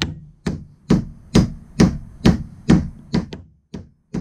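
Mallet blows driving a wooden wedge down into the top of a new axe handle, spreading the wood to lock the axe head on. About nine sharp strikes at roughly two a second, with a short pause near the end.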